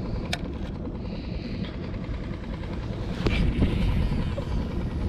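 Wind rumbling on the camera microphone, with two sharp handling knocks: one just after the start and a louder one about three seconds in.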